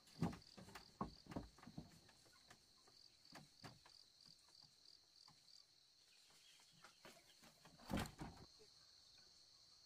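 Faint steady insect chirping, with scattered light knocks on bamboo early on and one louder knock about eight seconds in as the hut's bamboo door panel is shut.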